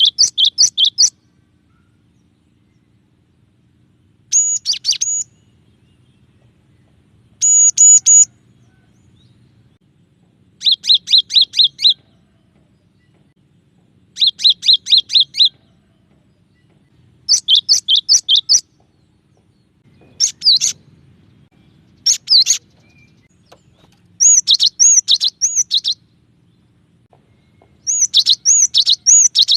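Cinereous tit (glatik batu) singing in varied phrases: about ten bursts, each roughly a second long, of quickly repeated high two-note figures, with the pattern changing from one burst to the next and short pauses between.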